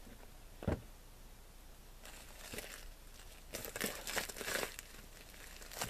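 Crinkling and rustling of a wrapper being handled, in two spells about two and four seconds in, after one soft thump a little under a second in.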